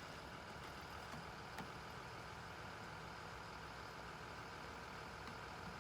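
Vehicle engine idling steadily, a faint low hum.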